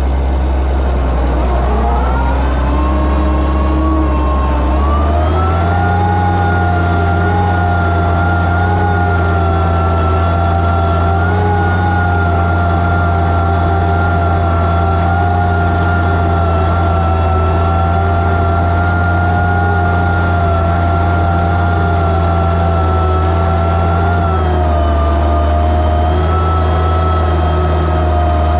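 Oliver 77 tractor's six-cylinder engine running steadily under load while pulling a plow, with a high whine over the engine note. The pitch climbs over the first few seconds, then holds, dipping slightly about 24 seconds in.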